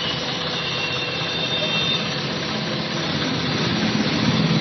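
A machine, a motor or engine, running steadily with an even hiss over it. A low pulsing grows louder near the end.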